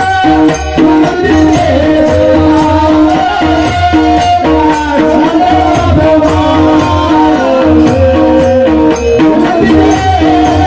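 Marathi devotional bhajan music: a melody drawn out in long held, slowly bending notes over a steady beat of percussion strikes and a low drum.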